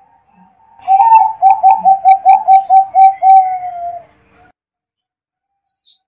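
Zebra dove (perkutut) song: a quick run of about ten short staccato coos, ending in a longer falling note.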